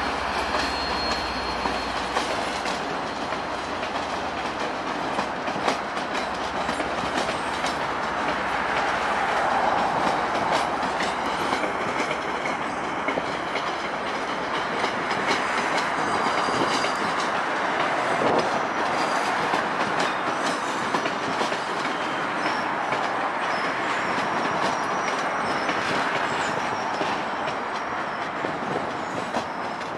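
MBTA commuter rail passenger coaches rolling past over yard trackwork: a steady rumble of wheels on rail with rapid clickety-clack over the joints and switches. Faint high wheel squeal comes and goes.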